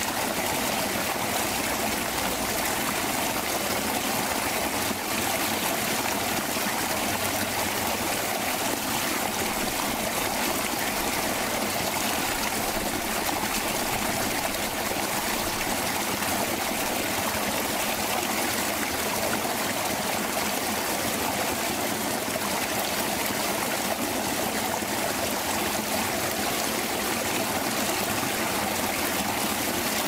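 Fast-flowing forest creek, a steady babbling rush of water.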